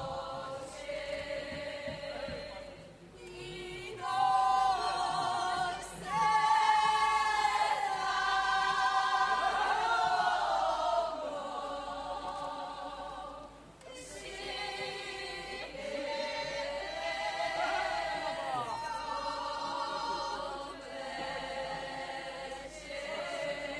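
A group of Podhale highland (góral) folk singers singing a folk song together in several loud phrases, split by short breaths, two of them ending in a falling slide.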